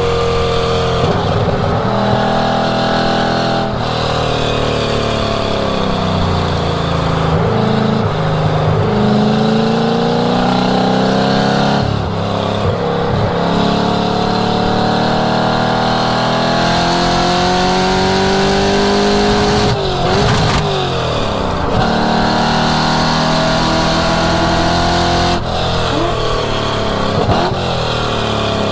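1967 Mustang's V8 exhaust, driven hard: the engine pitch climbs and falls again and again, with sudden drops at gear changes and lifts.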